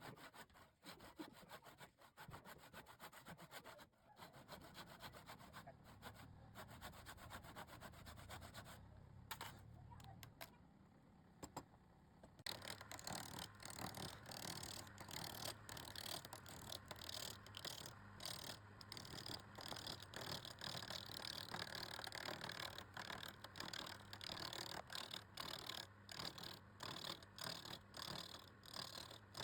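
Hand scraping or rubbing: quick, rhythmic back-and-forth strokes, faint at first and much louder and brighter from about twelve seconds in.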